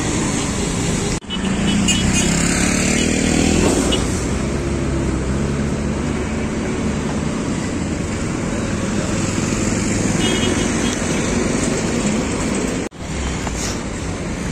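Street traffic on a busy city road: cars and motorcycles passing steadily, with one engine rising in pitch about two to four seconds in. The sound cuts out sharply for a moment twice.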